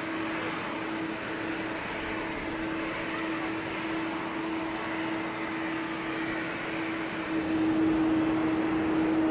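Boeing 747's four jet engines running with a steady hum as the jet lines up on the runway, then growing louder about seven seconds in as they spool up to takeoff thrust.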